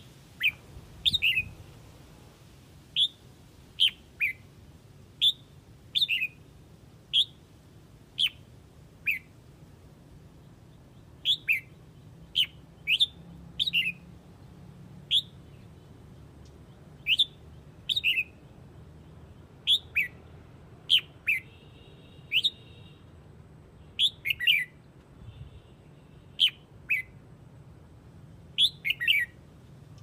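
Red-whiskered bulbul giving flock-calling calls: short, sharp chirps that drop in pitch, repeated irregularly about once or twice a second, some in quick pairs.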